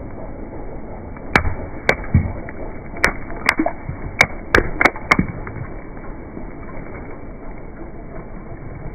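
Mesh squishy stress balls full of gel beads crushed under a slowly rolling car tyre: a run of about eight sharp pops and cracks between about one and a half and five seconds in as the balls split open, over the steady low hum of the car.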